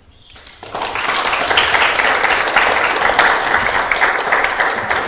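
Audience applauding, a dense patter of many hands clapping that starts about half a second in and builds quickly to a full, steady round.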